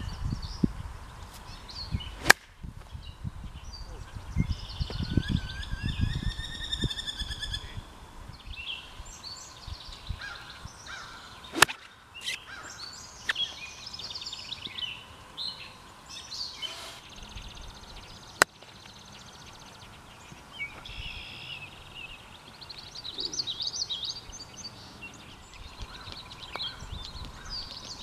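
Songbirds chirping and singing, with a low rumble under them in the first several seconds. Three sharp cracks stand out, spaced several seconds apart.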